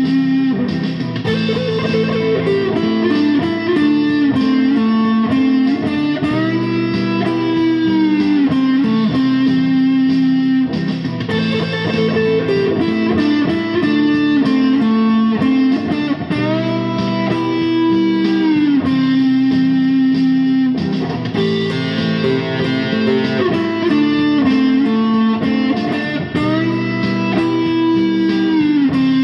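Electric guitar music: a lead melody of held notes, some bent up and back down, over lower notes, with the phrase repeating about every five seconds.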